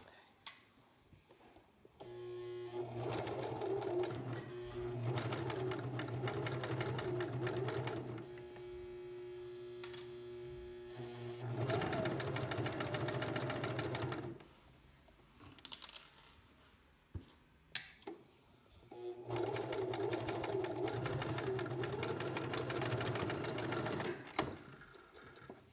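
Electric sewing machine stitching a seam through cotton fabric, in two long runs, the first easing to a slower, quieter pace for a few seconds partway through. A few light clicks fall in the pause between the runs.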